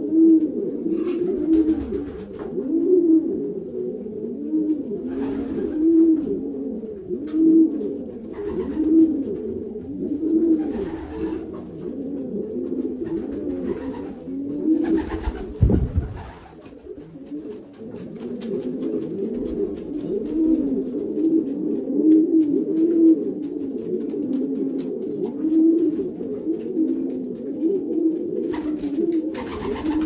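Domestic pigeons cooing continuously: low coos about every second or so, overlapping one another. There is a brief low thump about halfway through.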